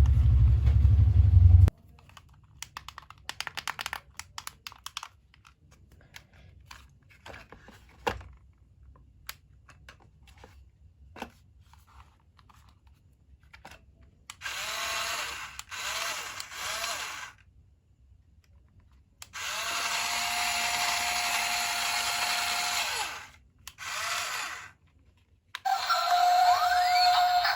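Small electric gear motors of toy RC construction vehicles whirring in short runs of a few seconds each, a steady whine over gear noise, after a stretch of light clicks and taps. A low rumble sounds briefly at the start.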